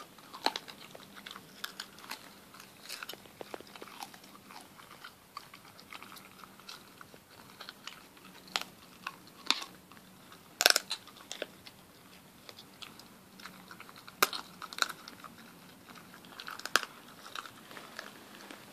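A dog chewing raw lamb and a young goat's shank, its back teeth crunching through the still-soft bone with irregular sharp cracks. The loudest crack comes a little past halfway.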